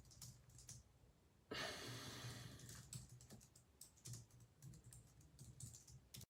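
Faint typing on a Logitech MX Keys low-profile wireless keyboard: scattered soft key taps, with a louder rustling hiss about a second and a half in.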